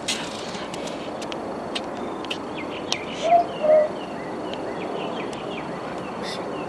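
Southern boobook owl (mopoke) giving its two-note 'mo-poke' call once, about three seconds in, the second note slightly lower than the first. Under it runs a steady background hiss with scattered faint high chirps, clicks and a thin insect-like whine.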